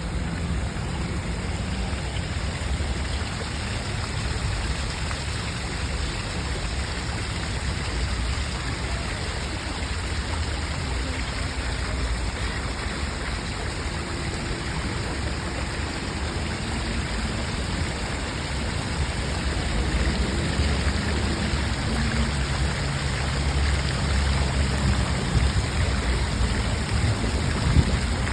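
Steady rushing water noise, an even hiss across the range with a low rumble underneath, growing a little louder about two-thirds of the way through.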